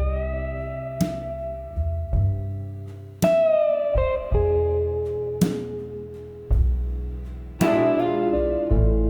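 Instrumental intro of a slow blues ballad: a guitar plays long, held notes that bend and slide in pitch over a deep bass, with a slow, steady beat of about one hit a second.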